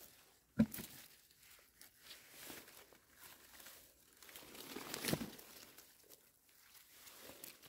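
Rustling and crinkling from hands at work on the forest floor while mushrooms are picked, with a sharp snap about half a second in and a louder crackle around five seconds in.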